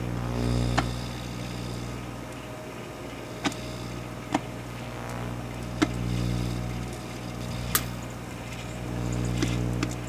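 Microwave oven running with a steady hum that swells and fades, while a mini LCD TV burns inside it, giving several sharp snaps spread a second or so apart.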